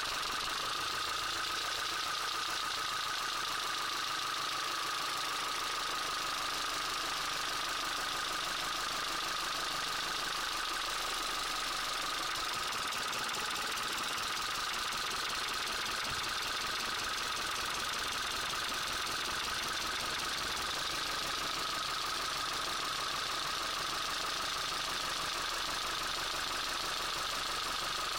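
Car engine idling steadily with a fast knocking and rattling, the noise being traced by cutting out the spark plugs one at a time.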